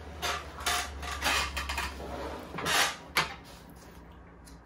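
A wooden chair creaking and scraping in several short bursts as someone settles into it, over the first three seconds or so.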